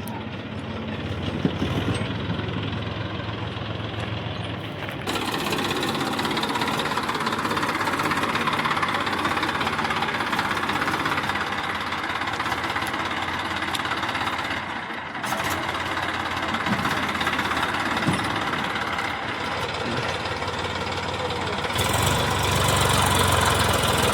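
Diesel engines of farm and construction machinery running steadily, with knocking, changing abruptly a few times.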